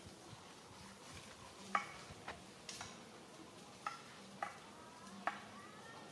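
Newborn baby macaque giving short, sharp squeaks, about six of them spaced half a second to a second apart, a few ending in a brief rising squeal.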